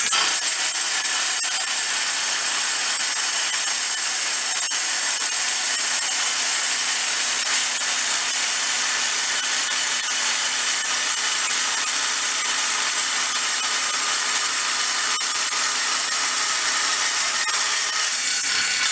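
Belt-driven wood table saw, slowed to half speed, with a carbide blade cutting through 1/4-inch steel plate: a steady, loud, high-pitched cutting noise that stops at the very end.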